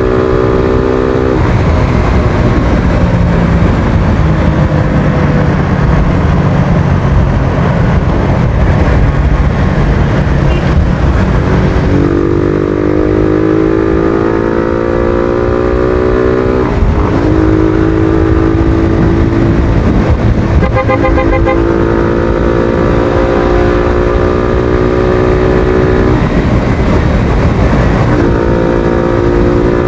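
Suzuki Thunder 125's single-cylinder four-stroke engine pulling hard on the move, its pitch climbing through each gear and dropping at gear changes about four times. Heavy wind rumble on the microphone runs underneath.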